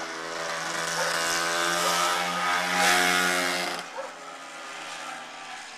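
Small dirt bike engine running at a steady buzzing pitch as it rides past, loudest about three seconds in, then dropping away sharply about four seconds in.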